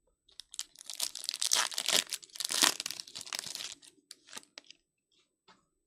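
Foil wrapper of a Topps Stadium Club baseball card pack being torn open and crinkled, a dense crackling for about three and a half seconds, followed by a few light ticks as the cards are handled.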